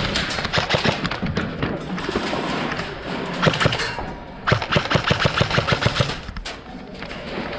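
Airsoft guns firing in rapid strings of sharp snapping shots, about seven a second: one short string about three seconds in, then a longer one of about a dozen shots.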